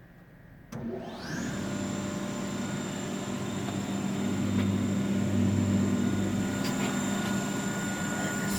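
Weinig Powermat 400 LE four-sided moulder switched on just under a second in: its spindles spin up with a rising whine over about half a second, then run steadily at speed with a high, even whine over a machine hum.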